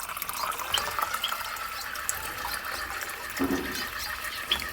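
Steady running water with a few short, high chirps from small aviary birds such as finches scattered through it.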